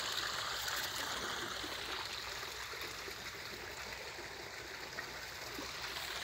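Water pouring steadily from a pipe into a garden pond, a continuous splashing trickle that fades a little in the middle and swells again near the end.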